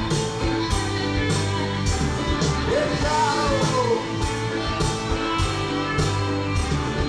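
Rock music: a steady drum beat and guitars under a sliding, singing-like melody line.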